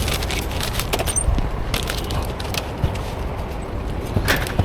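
Street food stall ambience: a steady low rumble, like traffic or a running burner, with scattered clicks and knocks from utensils and pans.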